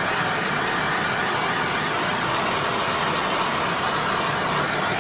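Heat gun blowing steadily, shrinking heat-shrink tubing over soldered wire splices.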